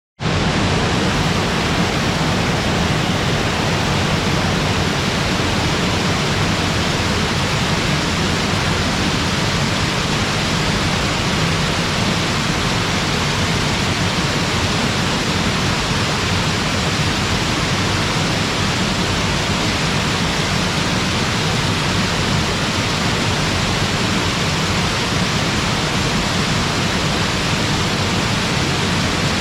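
Waterfall: a steady, unbroken rush of falling water with a deep low rumble under the hiss.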